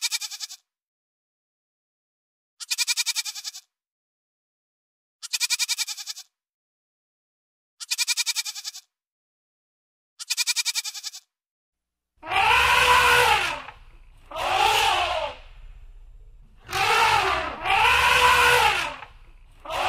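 Goat bleating five times, about every two and a half seconds, each bleat about a second long with a fast tremble. From about twelve seconds in, louder elephant trumpet calls follow, four or five of them, rising and falling in pitch over a low rumble.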